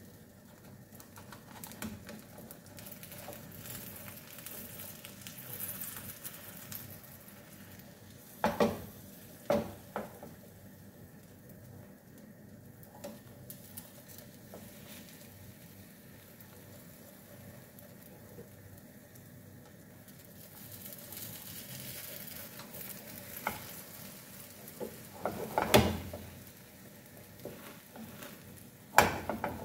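Beaten egg sizzling softly in a nonstick frying pan as the omelette sets, with a few sharp knocks and scrapes, the loudest near the end, where a spatula works under the omelette's edge.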